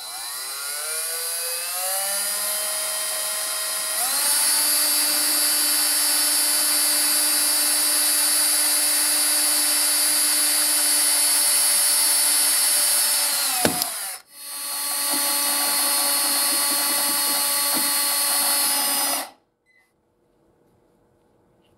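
Compact cordless drill on low speed drilling pilot holes into the face of a Suzuki TS50 engine's left-side crankshaft oil seal. The motor whine climbs in pitch over the first few seconds and then runs steadily. It breaks off for a moment about two-thirds of the way in, runs again for about five seconds, and stops.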